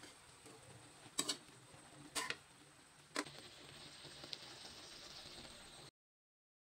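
Fish and sauce simmering softly in a wok, with three sharp clicks about a second apart, then a steady faint sizzle of the bubbling sauce that cuts off suddenly near the end.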